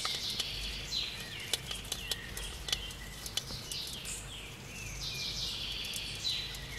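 Birds chirping, a run of short high calls that fall in pitch, repeating throughout, with scattered sharp clicks and a low steady rumble beneath.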